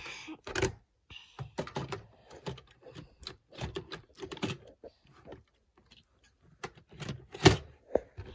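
Plastic storage drawers and model train items being rummaged through: an irregular run of small clicks and clatters of plastic on plastic, with one louder knock about seven and a half seconds in.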